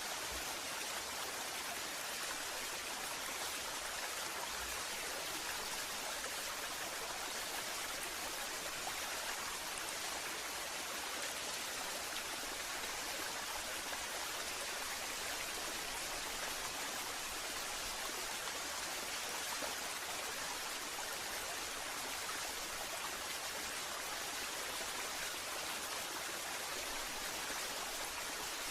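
Waterfall: water falling and splashing in a steady, even rush that doesn't change.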